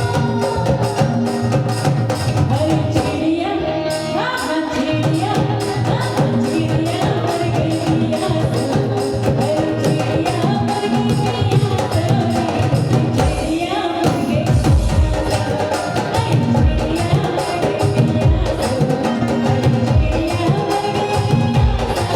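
Indian folk song: singing over a steady beat of hand drums and jingling percussion.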